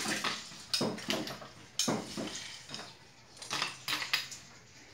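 A spoon knocking and scraping against a bowl while scooping food into a blender jar, a handful of separate clinks.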